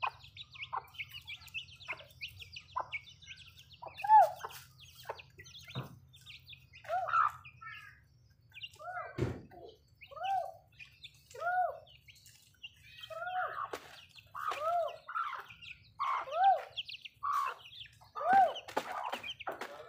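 Young chickens cheeping over and over in short arched peeps while they peck grain, with a dense higher chirping behind them and light clicks of pecking on concrete. A single thump comes about nine seconds in.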